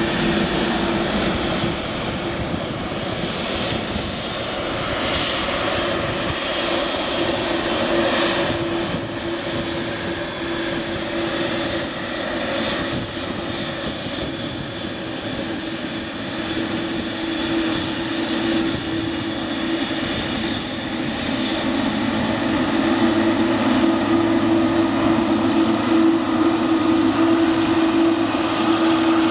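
Boeing 777-300ER's GE90 turbofan engines at taxi power: a steady jet engine drone with a persistent low tone, growing louder over the last several seconds as the airliner passes close by.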